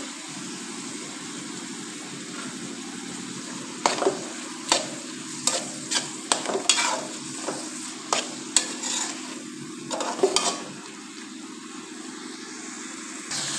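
Chicken, tomato and capsicum mixture sizzling in a frying pan. From about four seconds in to about ten seconds in, a slotted metal spatula stirs it, scraping and clicking against the pan.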